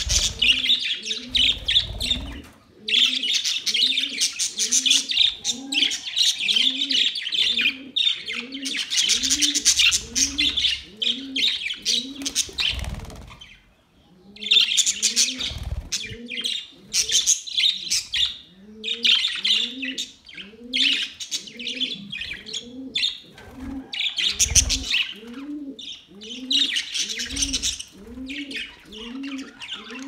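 A flock of budgerigars chirping and warbling in bursts of busy high chatter. Underneath, a low cooing call repeats steadily about every 0.7 seconds.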